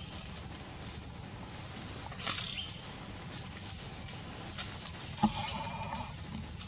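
A macaque's pitched call lasting about a second near the end, over a steady high-pitched whine. A few sharp clicks come through, the loudest just before the call.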